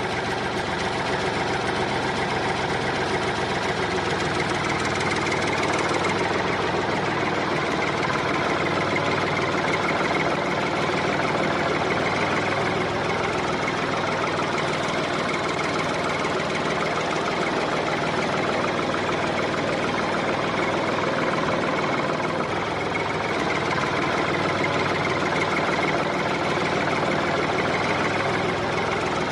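A small motor on a miniature DIY tractor running steadily, with a dense, rapid mechanical rattle.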